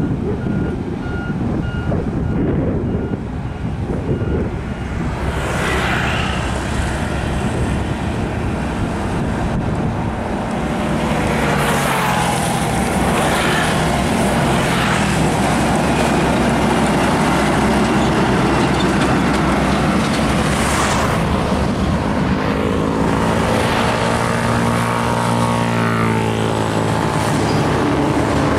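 Heavy diesel trucks running and passing close by on a busy road, with the whoosh of passing traffic. A repeated beeping sounds in the first five seconds, and near the end a truck engine's pitch rises and falls as it pulls away.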